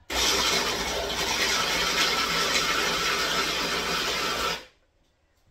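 Small electric food chopper running in one steady burst of about four and a half seconds, pureeing blueberries in its glass jar, then cutting off sharply.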